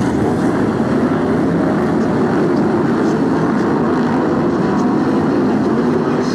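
A pack of BriSCA F1 stock cars with V8 engines running together, making a loud, steady drone of many engines at once.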